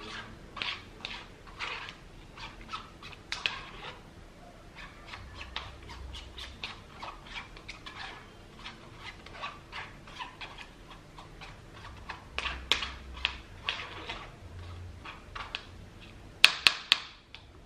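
A small spoon scraping and pressing baby-food purée through a plastic mesh sieve: short, irregular squeaky scrapes several times a second. Near the end come three sharp taps, the loudest sounds.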